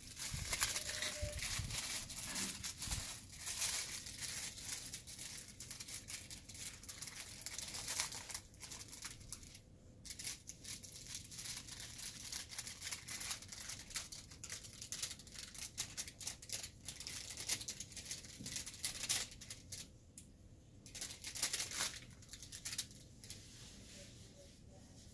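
Paper packaging of a sterile glove pack crinkling and rustling as it is opened and its inner wrap unfolded. It comes in bursts, with brief lulls about ten and twenty seconds in, and settles near the end.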